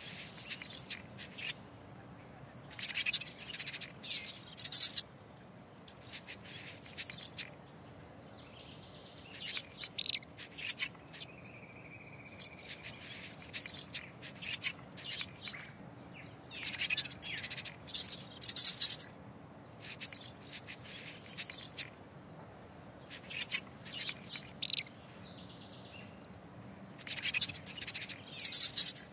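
Mouse sound effect: bursts of rapid, high-pitched squeaks and scratchy scurrying, each lasting a second or two and coming every few seconds, over a faint steady background.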